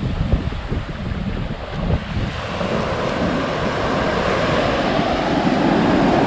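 Wind buffeting the microphone, then ocean surf swelling as a wave breaks and washes up the sand, loudest near the end.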